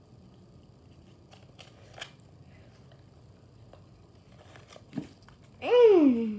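Faint crinkles and clicks of a gum wrapper being unwrapped by hand. Near the end a girl's voice gives one loud vocal sound that slides down in pitch.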